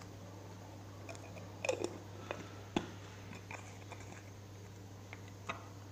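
Close-up mouth sounds of a person chewing food, with scattered short clicks and smacks, over a steady low hum.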